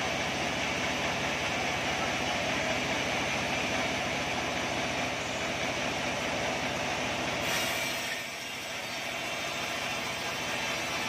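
Sawmill band saw running and ripping through an acacia log, a steady loud whine and rasp of the blade in the wood. About eight seconds in the sound thins and drops slightly, then builds again.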